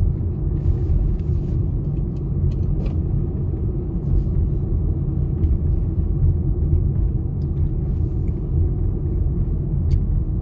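Car driving along a paved road, heard from inside the cabin: a steady low rumble of engine and tyre noise, with a few faint ticks.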